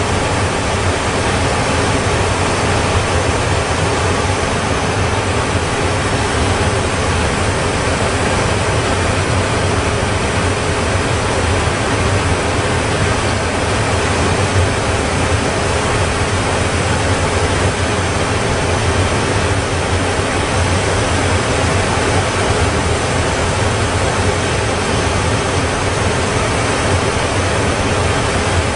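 Twin-engine jet airliner climbing away, its engines a steady, even rushing noise with a low hum underneath that does not change in level.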